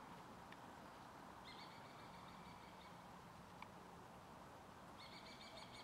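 Near silence with a faint, high, trilling animal call heard twice: once for nearly two seconds starting about a second and a half in, then again near the end.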